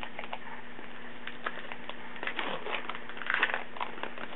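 A trading-card pack wrapper being torn open and crinkled, with light rustling that grows busiest about three seconds in. A faint steady hum runs underneath.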